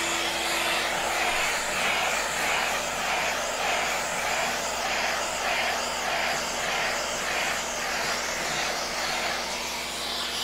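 Hand sanding with a long dust-collecting sanding block and 220-grit paper on hard two-part varnish over a wooden kayak hull. The back-and-forth strokes come about two a second, over the steady drone of the vacuum drawing dust through the block's hose.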